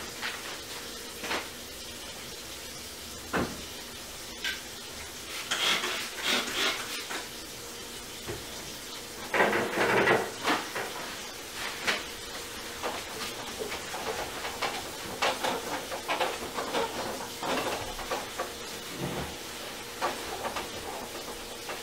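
Household background noise: scattered clicks and clatter over a faint steady hum, with a louder burst of clattering about halfway through.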